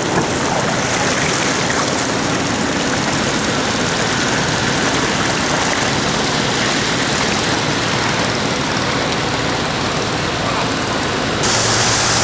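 Steady rushing noise of road traffic moving through floodwater: vehicle engines running, with water hissing and washing. About a second before the end it shifts to a brighter hiss.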